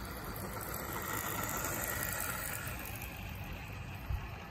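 HO scale model train running past on its track: a steady whirring and rolling noise that swells as the CP diesel locomotive passes close, then eases as the grain hopper cars follow. A single sharp click near the end.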